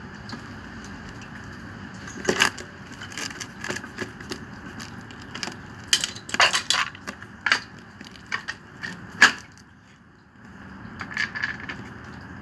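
Hand-tool work on a small peripheral water pump: a screwdriver scraping, clicking and knocking against the pump's metal body and fittings, in scattered sharp taps. The loudest knock comes about nine seconds in.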